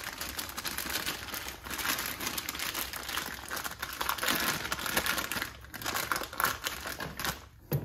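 Continuous crinkling and scratchy rubbing handling noise from hands working at the top of a motorcycle fork leg during a fork rebuild.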